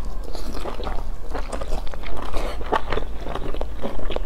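Close-miked chewing and crunching of a crisp pan-fried pastry, in many short uneven crackly bites and mouth sounds, over a steady low hum.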